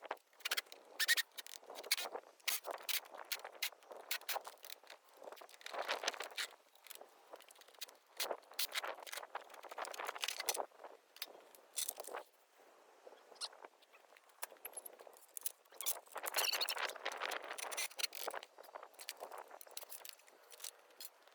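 Irregular clicks, scrapes and short squeaks of hand tools and metal parts being worked during the teardown of a 1978 Tomos 14TLS moped.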